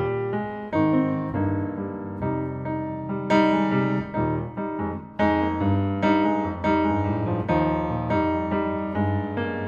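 Piano music: a steady run of struck notes and chords.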